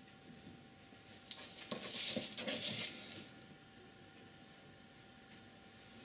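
A sheet of heavy painting paper scraped and rustled across the tabletop as it is turned, a hissy sliding sound from about a second in to about three seconds, with a few small taps.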